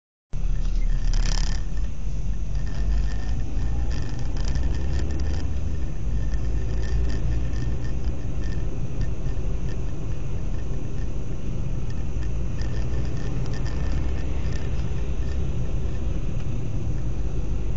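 A car driving along a city street, heard from inside the cabin through a dashcam microphone: a steady low rumble of engine and road noise that cuts in about half a second in, with a few light clicks and rattles in the first seconds.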